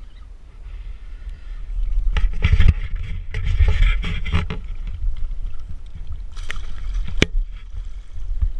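Water splashing and sloshing against a boat hull as a hooked fish is brought to the surface and scooped into a landing net, over heavy wind rumble on the microphone. A single sharp click comes about seven seconds in.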